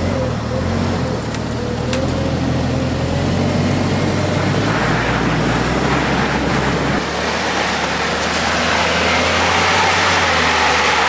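Jeep Wrangler TJ's engine running hard under load as it climbs a steep rock face. From about five seconds in, a rising rough hiss of the tyres scrabbling and spinning on the rock joins it.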